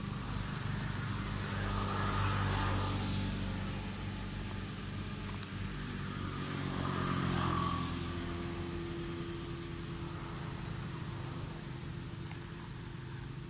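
Motor vehicle engines passing by, getting louder about two seconds in and again around seven seconds, then fading away.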